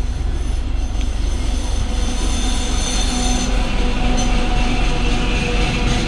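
ChME3 diesel-electric shunting locomotive passing close by with a single freight wagon, its diesel engine droning steadily under a high, steady squeal of wheels on the rails.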